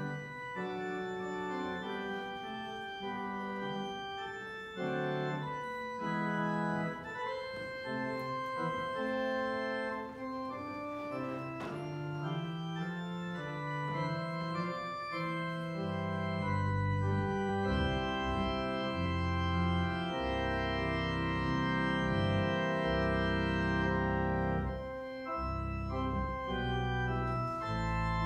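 Organ playing slow sustained chords as a postlude after the benediction, with deep bass notes joining about halfway through.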